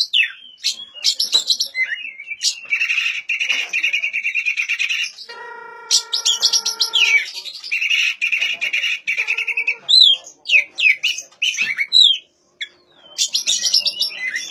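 Oriental magpie-robin (kacer) singing a long, varied song. It mixes clear whistles, fast rattling trills and quick sweeping notes, with a brief pause near the end.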